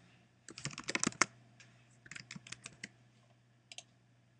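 Typing on a computer keyboard: a quick run of keystrokes from about half a second in to about three seconds in, then two faint taps near the end, over a faint steady low hum.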